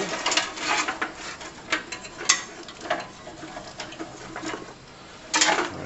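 Hands pulling and handling wires inside a sheet-metal street light housing: scattered light clicks, taps and rustles.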